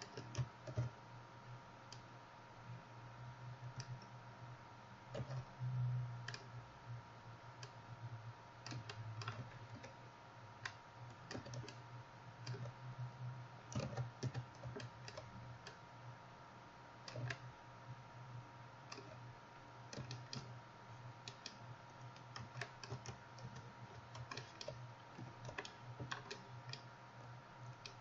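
Computer mouse clicks and keyboard keystrokes, irregular and often in quick runs, over a steady faint electrical hum.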